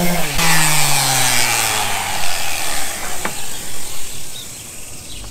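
Random orbital sander with a 120-grit disc on a cast iron skillet is switched off just after the start, its motor hum falling in pitch as it spins down over about two seconds. A single click follows about three seconds in.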